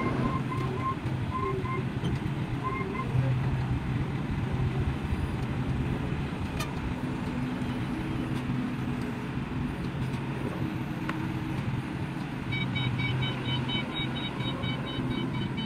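Forklift engine running steadily while it unloads pallets, with its warning beeper sounding a short series of beeps near the start and a quicker run of higher beeps near the end.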